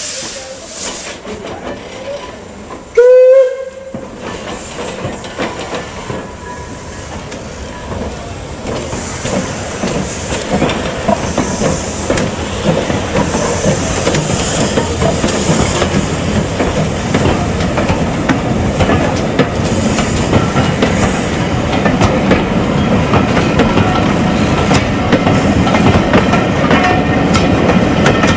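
A steam locomotive's whistle sounds once, a short note that slides up in pitch and holds for under a second. Then comes steam hissing and the rolling noise of the train under way, growing steadily louder as the coaches pass with the clatter of wheels on rail.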